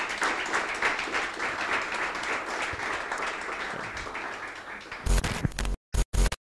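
An audience applauding, the clapping slowly dying away. Near the end a few loud, choppy blasts of sound start and cut off abruptly.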